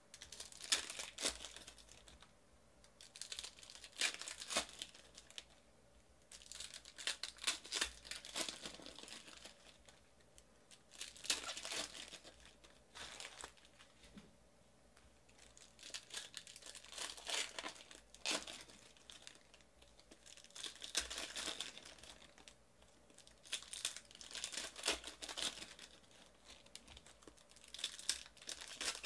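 Foil trading-card pack wrappers being torn open and crumpled, in a burst of crinkling every two to three seconds.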